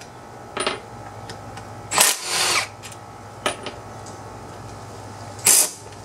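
Cordless drill backing bolts out of a small engine's crankcase cover in several short bursts, the longest about two seconds in.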